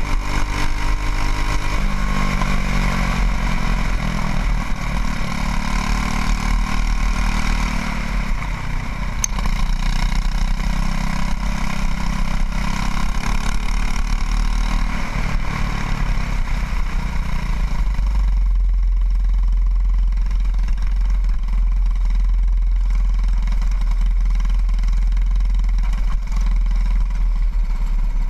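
Racing kart engine heard onboard, revving up and down under load. About eighteen seconds in the engine drops back and only a low rumble remains as the kart slows.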